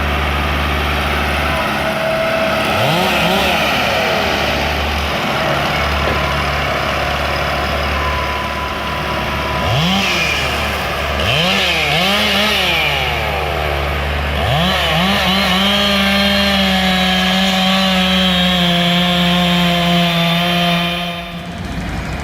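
Chainsaw engine idling, revved in several quick rise-and-fall blips, then held at high revs for about five seconds near the end before dropping back.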